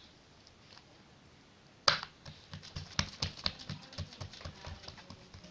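Oiled hands slapping and patting a ball of leavened dough flat on a wooden board: a sharp slap about two seconds in, then quick, irregular pats as the dough is spread thin.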